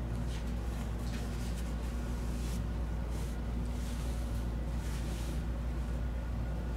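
Soft swishes of a tissue being wiped over the brow and forehead, a handful of short brushing sounds over a steady low hum.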